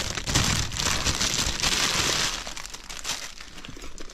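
Crinkling and rustling of packaging as a handbag is handled, heavy for the first couple of seconds and then tailing off.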